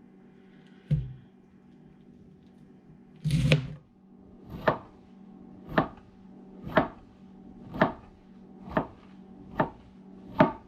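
Knife shaving a cabbage into thin slices on a cutting board: a couple of knocks, then about seven steady strokes roughly once a second, each a short slicing swell that ends in a sharp tap of the blade on the board.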